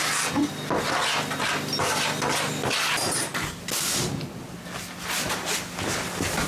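Nails being driven into glued-down plywood floor layers: a run of irregular sharp knocks on wood.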